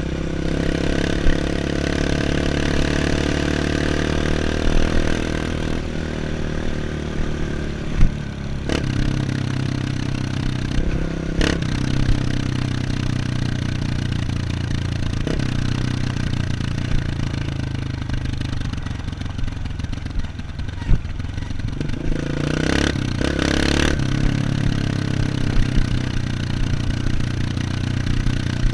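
Dirt bike engine running under way, its revs shifting a few times, with a few sharp knocks.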